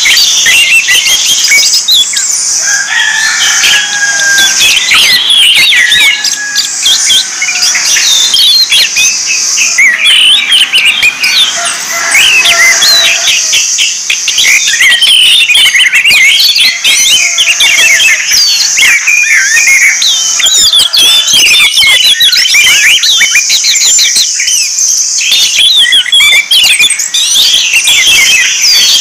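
Orange-headed thrushes singing: a continuous, fast, varied run of chirps, twitters and whistles, with a few lower drawn-out whistles in the first half. A steady high buzz runs behind much of it.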